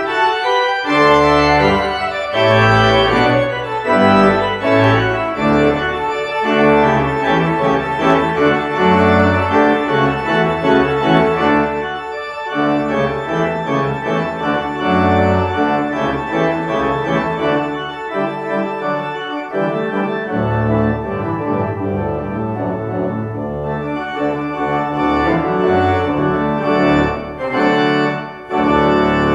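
Church organ played from a multi-manual drawknob console: a loud piece of sustained chords over a moving bass line, closing on a final chord near the end.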